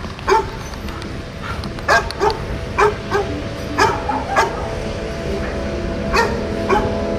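A dog barking: about nine short, sharp barks with pauses between them, several coming in quick pairs.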